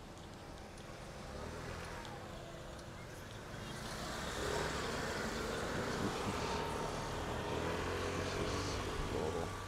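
A car drives past on the street. Its engine and tyre noise swells about four seconds in and holds until near the end.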